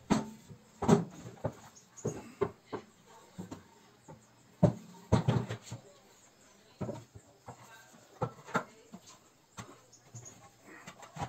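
Wooden cutting boards being picked up and set down on a workbench: irregular knocks and clatter of wood against wood.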